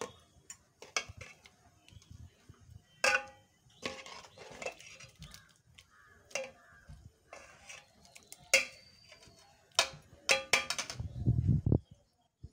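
Metal ladle stirring a metal pot of kanji: irregular sharp clinks and scrapes against the pot, several ringing briefly. A low rumble near the end.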